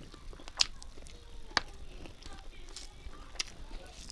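Eating rice and curry by hand: wet chewing and mixing sounds with a few sharp mouth or finger clicks, one every second or two.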